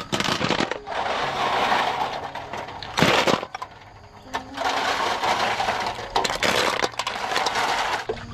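Freshwater snail shells clattering and grinding against one another as they are washed by hand in a metal basin of water. The dense clicking comes in long runs, with a sharper clack about three seconds in and a short lull soon after.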